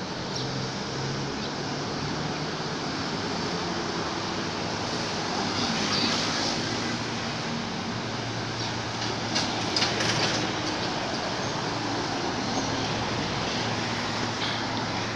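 Steady vehicle noise with a low hum, and a few short clicks about nine to ten seconds in.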